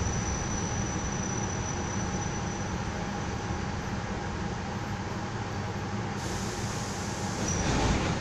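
Suburban electric train heard from inside the carriage as it rolls slowly to a stop at a platform: steady low rumble of the car. A hiss of air, typical of the air brakes as the train halts, starts about six seconds in and is loudest near the end.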